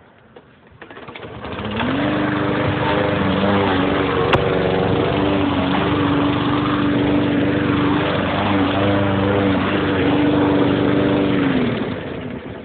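Gas push lawn mower engine starting up about a second in, rising to a steady run, then slowing and dying away near the end.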